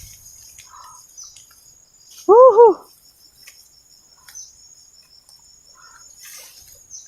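Crickets chirring steadily, with two quick rising-and-falling calls about two and a half seconds in that stand out as the loudest sound.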